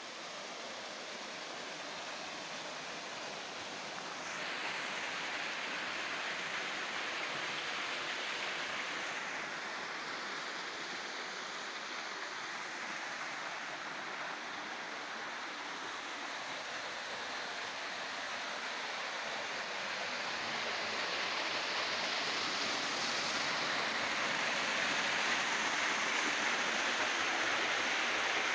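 Water from an artificial rock waterfall splashing down into a pool, a steady rush that gets louder about four seconds in and again toward the end.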